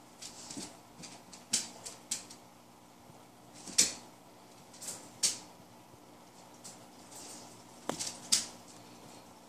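A puppy's claws and paws clicking on a hard floor and knocking against a wire cage as it plays around it: scattered sharp clicks and rattles, about seven in all, the loudest near the middle and near the end.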